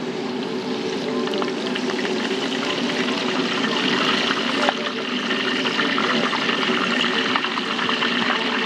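Sweet potato chunks deep-frying in a large wok of hot oil inside a wire spider basket, a dense crackling sizzle that grows louder over the first few seconds as the basket goes under. A steady low hum runs underneath.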